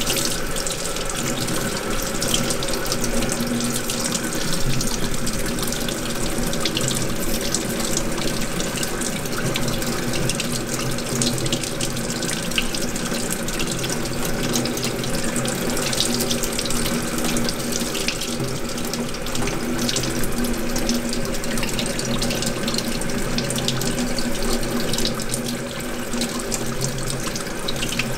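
Water tap running a steady stream onto a gloved hand, splashing off the wet glove into a stainless steel sink.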